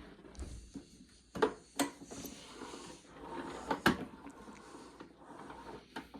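Handling noises: a few sharp knocks and clunks over light rustling. The loudest come about one and a half, two and four seconds in.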